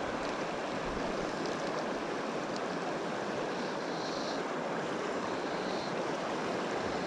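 Steady rushing of a fast, shallow river flowing over riffles.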